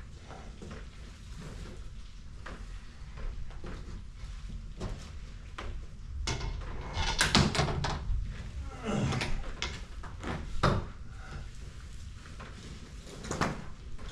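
Knocks, bangs and scraping of things being handled and moved during a room clean-out, with the loudest clusters of noise about halfway through and again near the end.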